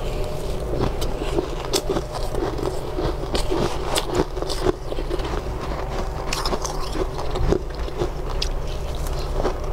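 Shaved ice crunching as it is bitten and chewed, a run of irregular sharp crunches, some spoon scraping, over a steady low hum.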